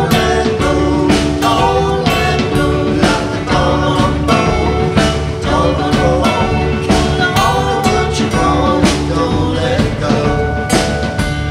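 Live band playing an instrumental passage of a mid-tempo song: strummed acoustic guitar over a drum kit keeping a steady beat.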